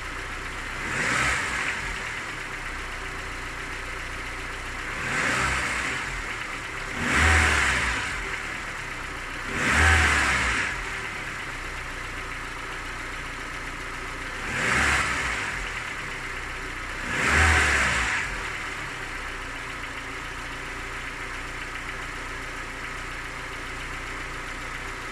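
Car engine idling steadily and revved briefly six times, each rev rising and falling back to idle. The owner reports that this engine knocks when cold and that the knock goes away as it warms to about 90 °C.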